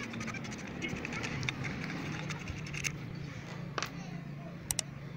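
A few sharp metallic clicks and taps of a socket wrench working the cylinder-head nuts, over a steady low hum in the background.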